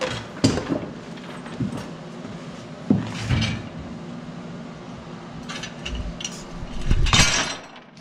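Scrap steel plates and small metal parts being handled and set down on a wooden workbench: scattered clanks and knocks, with a longer, louder noise about seven seconds in.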